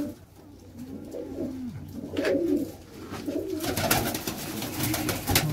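Domestic pigeons cooing, low and repeated, with short bursts of wing-flapping in the second half.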